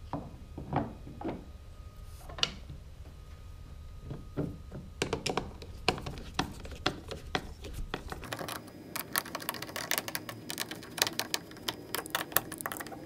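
Hand screwdriver driving screws through a plastic micro anchor base into a plastic adapter plate. A few separate knocks come first as the parts are handled and set down, then about five seconds in a fast run of clicks and ticks as the screws are turned.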